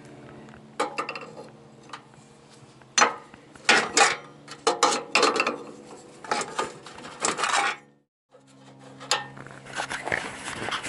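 An open-end wrench clinking and rattling against the metal fittings and sheet-metal housing of a Suburban SF-30 RV furnace as a fitting is loosened: a run of sharp, irregular metallic clicks and clatters.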